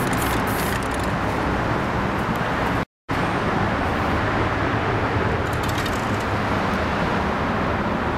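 Steady road traffic noise. In the first second there are short hisses of a spray-paint can being sprayed onto a wall. About three seconds in, the sound cuts out completely for a moment.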